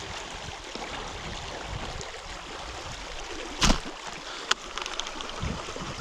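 Steady rush of shallow river water. About three and a half seconds in comes a single sharp thump, the loudest sound, followed by a smaller click a second later.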